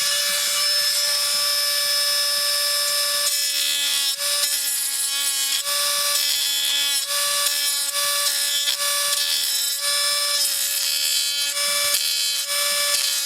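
Dremel rotary tool running at a steady high whine. From about three seconds in, its bit keeps catching on the die-cast metal chassis of a toy car, and each contact adds a lower grinding tone, about once a second.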